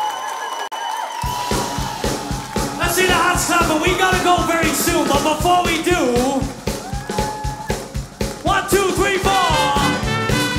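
A swing band kicks into a song about a second in: a steady, driving beat with a lead melody line over it, following a moment of crowd noise.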